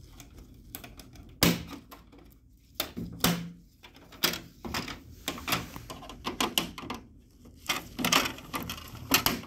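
Plastic covers and the rear access door of an HP LaserJet 4001 printer clicking, snapping and knocking as they are pried and unclipped. The clicks come irregularly, with the loudest about a second and a half in and a cluster near the end.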